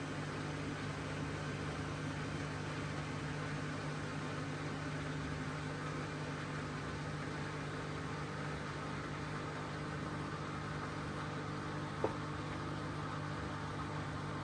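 Hoover DXOA610AHFN-80 front-loading washing machine in its spin, the drum and motor running at a steady speed with an even hum, with one brief click about twelve seconds in.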